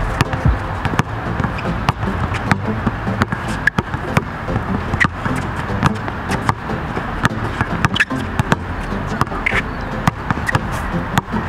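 Basketball being dribbled on an outdoor hard court, with irregular bounces and knocks over a loud, steady background noise.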